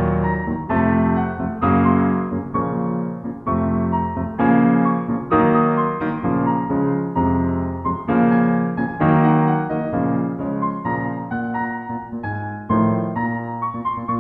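Background piano music: chords struck at a steady pace, each ringing and fading before the next.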